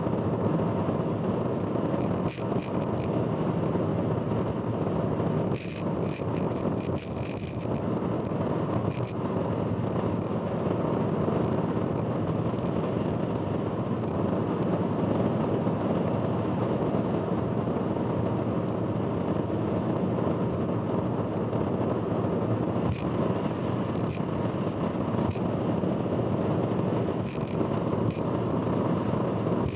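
A car driving at expressway speed: steady road and tyre noise, with scattered sharp clicks and rattles. The clicks bunch together about six to seven seconds in and again near the end.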